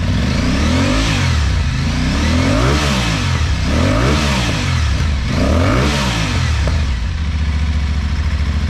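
2022 Aprilia Tuareg 660's parallel-twin engine, breathing through an aftermarket Arrow exhaust with a LeoVince muffler, blipped four times in quick succession. Each rev rises and falls back, and then the engine settles to a steady idle near the end.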